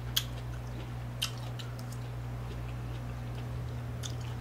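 Quiet chewing of a mouthful of steamed broccoli, with two sharp clicks about a second apart near the start, over a steady low hum.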